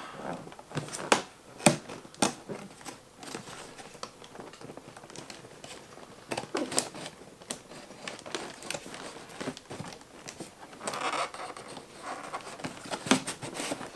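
Cardboard box packaging being worked loose by hand: crinkling and rustling with scattered sharp clicks and knocks, the loudest few about one to two seconds in.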